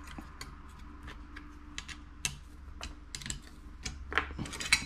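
Irregular small clicks and taps as a Fitzbrick bricklaying clamp is slid along and its thumbscrews are tightened with a penny, with a cluster of louder clicks near the end.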